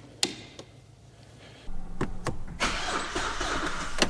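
A click, then about a second and a half in the Hyundai Tucson's 2.0 GDI engine is cranked and starts, running on steadily from about two and a half seconds. The engine is misfiring and dead on cylinder number 2.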